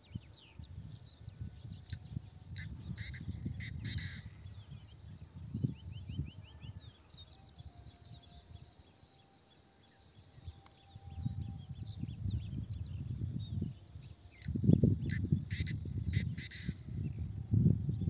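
Birds calling outdoors in two short series of quick repeated calls, a few seconds in and again about fifteen seconds in, over gusts of wind buffeting the microphone that are loudest near the end.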